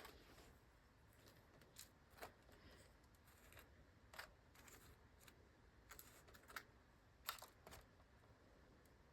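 Near silence broken by faint, scattered light clicks and rustles of hands working potting soil and plastic seedling cells, the loudest a little past the seventh second.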